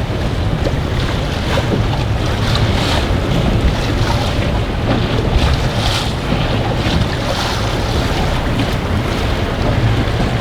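Strong wind of about 20 knots buffeting the microphone in gusts, a loud rumbling rush with surges of hiss.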